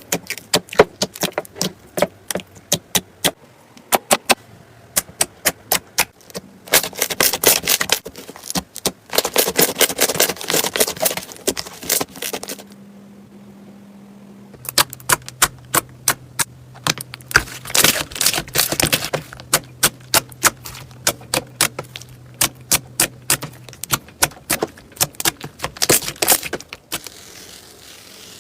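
Slime being squeezed and poked by hand, making rapid sharp clicking and crackling pops, with denser runs of crackling twice and a brief lull in between.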